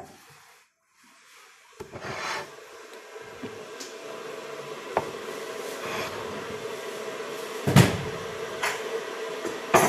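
Kitchen handling noises: a few separate knocks and clatters, like cupboards or dishes being moved, the loudest about eight seconds in, over a steady hum that starts about two seconds in.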